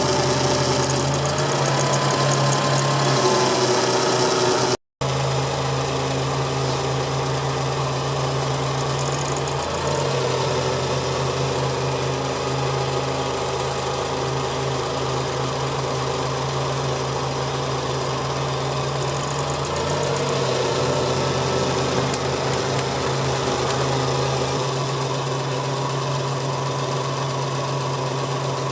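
Suzuki Cappuccino's small three-cylinder turbo engine running steadily, with a constant low hum whose tone shifts slightly a few times. The sound drops out completely for a moment about five seconds in.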